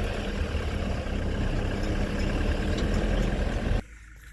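Truck engine running steadily, a low hum, which cuts off abruptly near the end.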